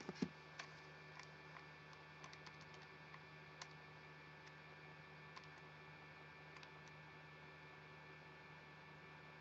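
Faint, scattered computer keyboard keystrokes, a few close together in the first second and single taps spread over the next several seconds, over a steady low mains hum.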